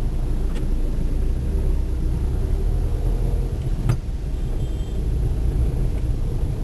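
Steady low rumble of a moving car on the road, with a single sharp click about four seconds in.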